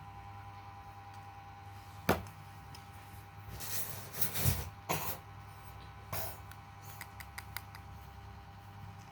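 Small plastic containers and a spoon being handled while glue is spooned in: a sharp click about two seconds in, then a few seconds of scraping and rustling, another click, and light ticks near the end.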